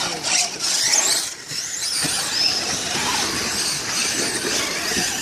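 Traxxas radio-controlled car running, a high whine rising and falling with throttle over a steady hiss.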